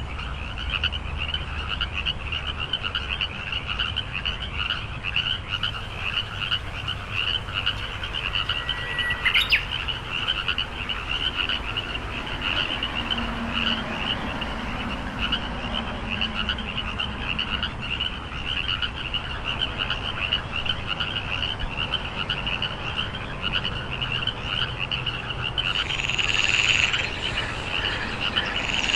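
Frogs croaking in a steady, dense chorus of fast, pulsing calls, with a single sharp click about nine seconds in and the calling a little louder near the end.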